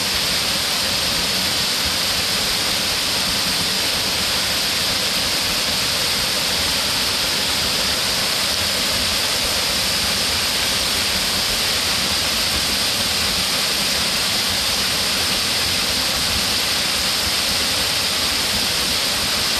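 Waterfall: a steady, even rush of falling water that does not change.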